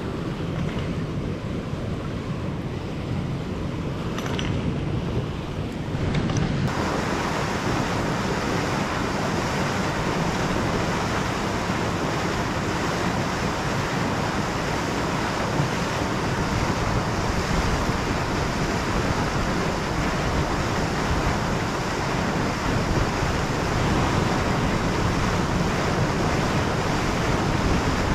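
Steady rush of flowing river water mixed with wind noise on the microphone. About six seconds in it changes abruptly, becoming louder and brighter.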